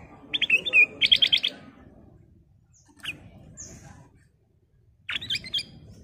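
Ruby-throated bulbul (kutilang emas) singing in short bright phrases of quick notes, one near the start and another near the end, with a faint single note between.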